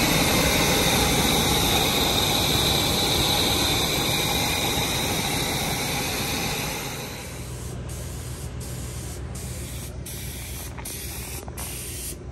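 Carbureted engine running in the bus's engine bay, with a hiss of water spraying from its hose-flushed cooling system. About seven seconds in this gives way to a paint spray gun hissing, cut by short breaks about every second as the trigger is released between passes.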